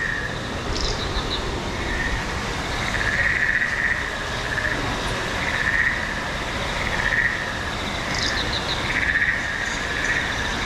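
Insect- and frog-like jungle soundscape: a steady high drone with chirping calls that swell and fade every second or two, and a quick run of clicking chirps about a second in and again near the end.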